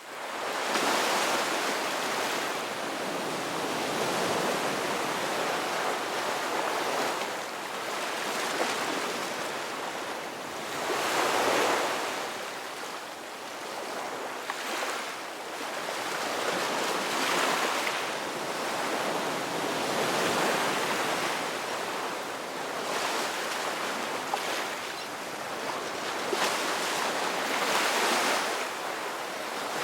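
Ocean surf: waves breaking and washing continuously, swelling and easing every few seconds.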